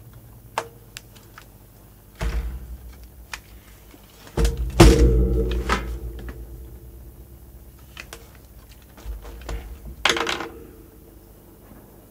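Clicks, knocks and thuds of hands and tools working on the casing and parts of an opened video recorder. There are scattered light clicks, with heavier thuds about two seconds in, around five seconds in (the loudest), and again near ten seconds in.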